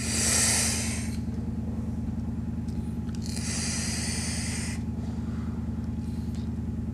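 Drawing on an Oxva Origin X pod mod firing at 40 watts: two hissing stretches of air being pulled through the device, the first about a second long at the start and the second a little longer, past the middle, over a steady low hum.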